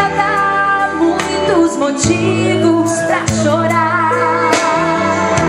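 Two women singing a Portuguese-language gospel song live through microphones, their voices wavering with vibrato, over band accompaniment with steady bass notes and occasional drum hits.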